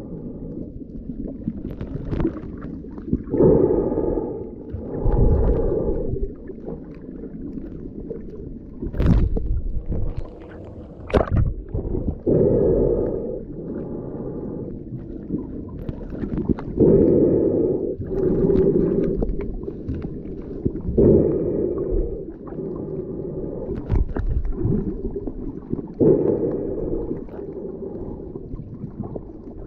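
Muffled underwater sound of a snorkeler swimming, heard through an underwater camera: a dull water rush that swells every two to four seconds, with gurgling and two sharp knocks near the middle.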